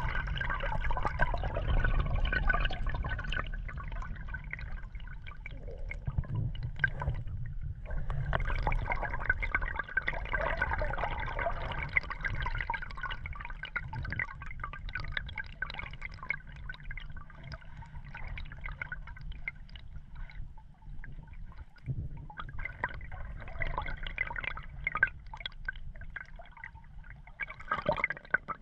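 Water gurgling and sloshing over a camera held under the surface, heard muffled with a low rumble. The sound comes and goes in surges as the camera moves through the water.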